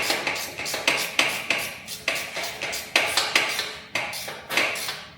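Metal parts and tools clanking and clattering, a quick irregular run of sharp knocks with a short ring after each.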